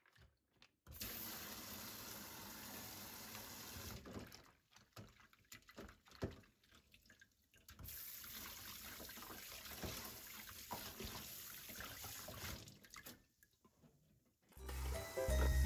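Kitchen tap running onto baby octopus rinsed by hand in a stainless steel colander in the sink, in two stretches: from about a second in to about four seconds, and again from about eight seconds to thirteen, with wet splashing and handling in between. Background music comes in near the end.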